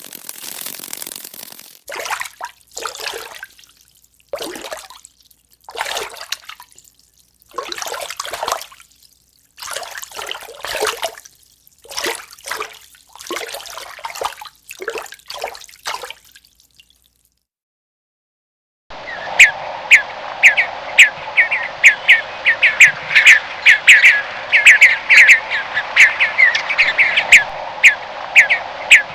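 Two separate animal recordings. First comes a series of short, noisy bursts about once a second. Then, after a brief silence, a bird starts a fast, repeated chirping.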